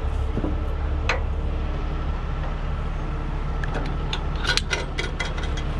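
Heavy rotator tow truck's diesel engine idling steadily. There is a sharp metal click about a second in, and a run of clinks and rattles from steel shackles and wire rope being handled around four to five seconds in.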